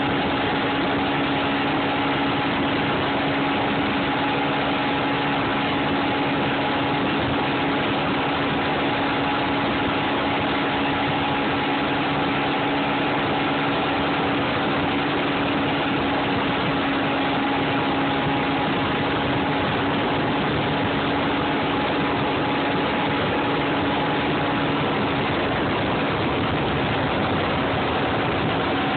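Mercury 225 outboard motor running steadily at speed, its even engine tone holding one pitch throughout, over a constant rush of wind and wake water.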